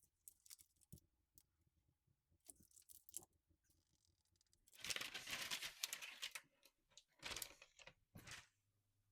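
Light kitchen handling noises: a few soft clicks and taps, then bursts of rustling and crinkling. The longest burst comes about five seconds in and lasts over a second, followed by two short ones near the end.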